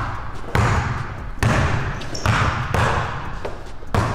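Basketball dribbled on a hardwood gym floor: about six sharp bounces, a little under a second apart, each echoing in the hall.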